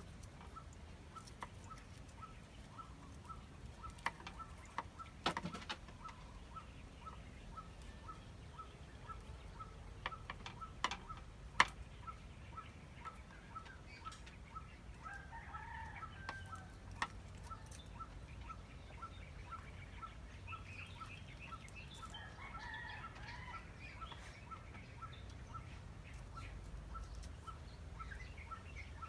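Chickens clucking in short bursts twice, over a faint, steady chirp repeating about twice a second. A few sharp knocks come in the first half.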